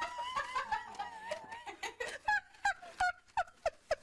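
Rubber squeaky toy squeaking as a dog chews it: one long wavering squeak, then a quick run of short, sharp squeaks, about three or four a second.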